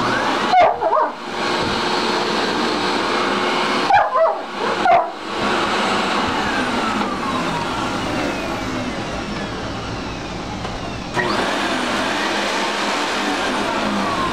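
Upright vacuum cleaner running steadily while a German Shepherd barks and whines at it: one burst about half a second in and two more around four to five seconds in.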